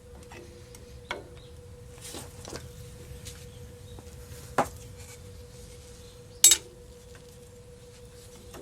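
Metal tools and axle parts clinking and knocking during disassembly of a tractor front axle: a few light clicks and taps, a ringing knock about four and a half seconds in, and one sharp, loud metal clank about six and a half seconds in.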